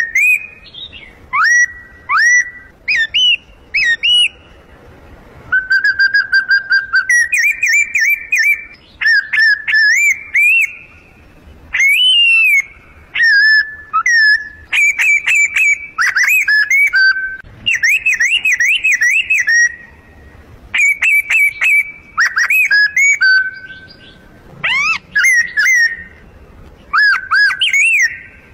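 Bird calls imitated by blowing on a leaf held between the lips: loud, shrill chirps and warbling whistles, in short phrases of quick rising and falling notes with a few held tones and brief pauses between phrases.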